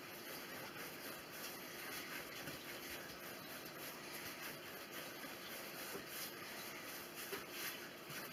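Faint soft rubbing of hands rolling bread dough back and forth on a floured wooden worktop, with a low steady hum beneath.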